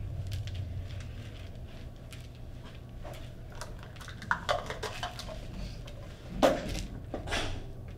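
A spatula folding chocolate chips into thick cookie dough in a large plastic mixing bowl: soft scrapes and light clicks, with a louder knock against the bowl about six and a half seconds in and another a second later.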